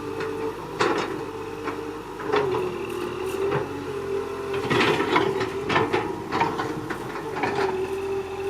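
Excavator at work: a steady mechanical whine that wavers up and down in pitch as the machine moves, with frequent sharp clanks and knocks of metal and earth.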